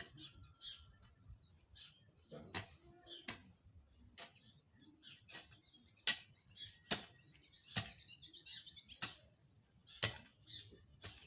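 A hand hoe (jembe) chopping into soil while weeding, about one stroke a second, with birds chirping between the strokes.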